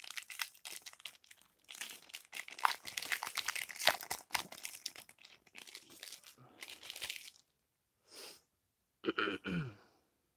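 Foil wrapper of a Panini Prizm trading-card pack being torn open and crinkled by hand, a dense run of rapid crackles for about seven seconds that then stops. A short voice sound follows near the end.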